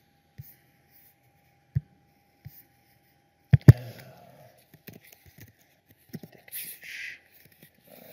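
Computer mouse clicks, with a sharp double click about three and a half seconds in, followed by light keyboard typing. A faint steady tone runs underneath.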